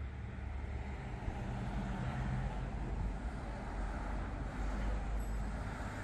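Road traffic: a steady low engine hum with the rush of passing vehicles.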